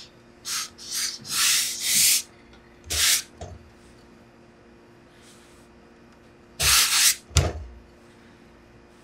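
A hose-fed industrial steam iron gives short hisses as it presses wool trousers, then a knock about three seconds in. Near the end come rustling and a heavy thud as the trousers are pulled over a pressing buck.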